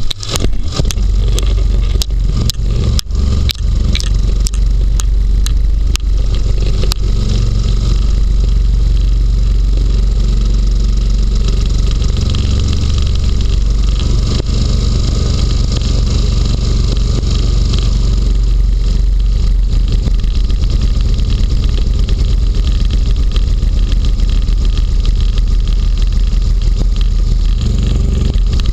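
Inflatable hovercraft's engine and lift/thrust fan running steadily as it glides over snow, with its rubber skirt sliding over the surface. A run of sharp knocks sounds during the first seven seconds or so.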